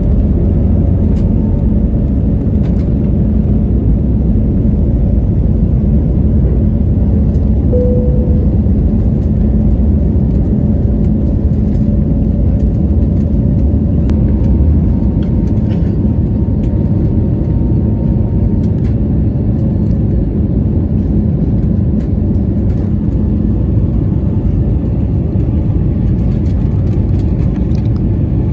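Steady low rumble of an Airbus A320neo airliner's engines and airflow heard inside the passenger cabin. A brief high tone sounds about eight seconds in.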